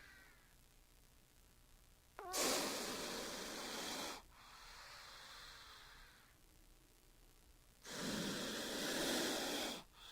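King cobra hissing: two long, loud hisses of about two seconds each, with a fainter, softer hiss between them.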